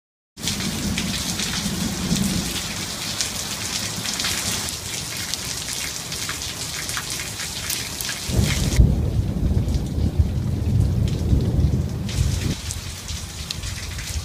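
Steady rain falling and splashing on wet surfaces, with many single drops ticking. From about eight to twelve and a half seconds in, a deep rumble runs under the rain.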